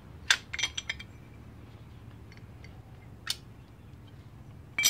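Brake pads and their retaining pin clicking and clinking against a Harley-Davidson Road Glide front brake caliper as the pads are worked loose by hand: a quick run of sharp metallic clicks near the start, a single click about three seconds in, and another cluster at the end.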